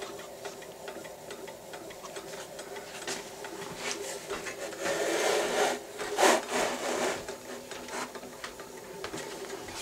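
Water-cooled Heinrici hot air engine running steadily, its crank and linkages making a soft rhythmic clatter and rubbing, with a louder scraping stretch about five to six seconds in.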